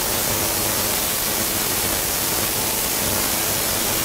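Tesla coil discharging, its sparks arcing into a hand-held glass flask of low-pressure hydrogen: a steady, dense sparking hiss.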